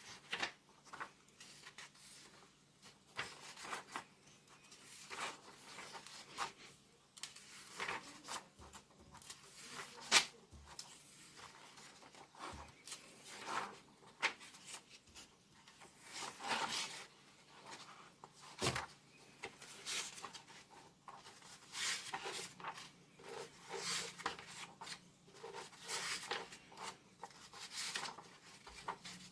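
Comic-book packaging being handled and opened by hand: irregular rustling, rubbing and tearing, with short crinkly swishes every second or so.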